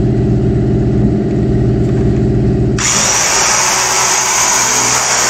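Old disc sander with a 60-grit disc running against the paint on a Corvette's rear spoiler, a steady motor hum. About three seconds in the sound changes suddenly to a loud, even hiss as a sander with a yellow pad grinds the paint down.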